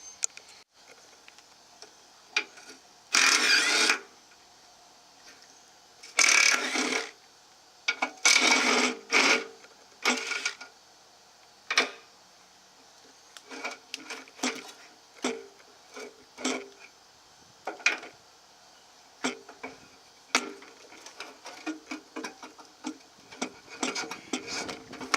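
Hand tools working bolts on the truck's evap bracket: four short bursts of rapid ratcheting in the first ten seconds, then scattered clicks and knocks of metal tools and parts.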